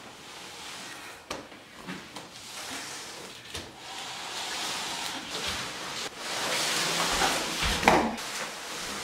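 A large cardboard box being pushed and slid across a hardwood floor: a scraping hiss with a few knocks, louder in the second half, with a thump near the end.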